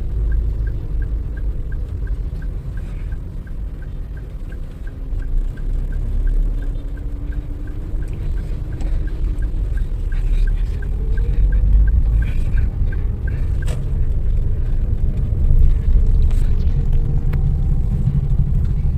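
Inside a car: engine and road rumble while driving, with the turn signal ticking steadily, about two or three ticks a second, until it stops with a sharp click about fourteen seconds in. The engine note glides up and the rumble grows louder near the end.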